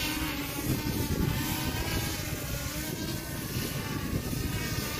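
Holy Stone HS720E quadcopter's propellers whining steadily as the drone comes down low over the water to land, with gusty wind buffeting the microphone.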